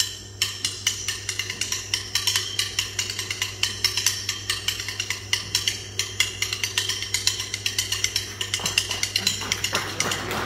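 Two wooden drumsticks clicked against each other in a rhythmic run of sharp, dry clicks that grows faster and denser as it goes.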